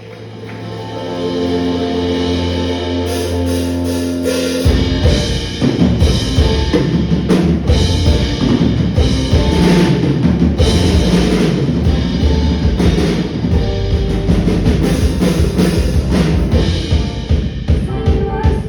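Live band playing an instrumental intro. It opens on held chords, and about four and a half seconds in the drum kit and bass come in with a steady beat.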